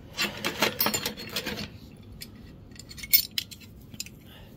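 Lakeside steel combination wrenches clinking and rattling against each other and the metal tool box as they are lifted out and handled. A busy clatter in the first second and a half is followed by scattered single clinks, one sharp and loud about three seconds in.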